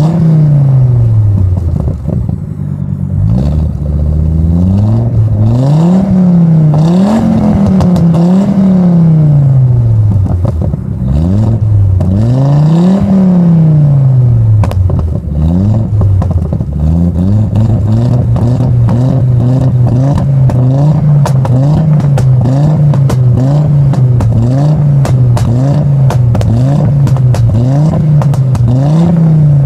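Volvo 850 T5's turbocharged five-cylinder revved hard at a standstill, heard at the tailpipe: several long revs rising and falling, then quick short blips of the throttle about once a second, with sharp pops and crackles from the exhaust.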